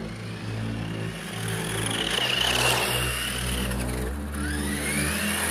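Electric RC buggy's DC motor and 3D-printed transmission gear whining as the car speeds up. The pitch rises about two seconds in, then rises again near the end, heard over background music.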